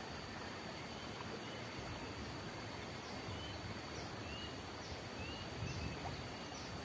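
Rural outdoor ambience: a steady high-pitched insect drone over a background hiss, with a few faint, short bird chirps scattered through, and a brief low rumble about two-thirds of the way in.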